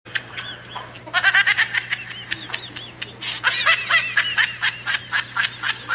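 High-pitched giggling laughter in quick, repeated bursts, in two spells, over a steady low hum.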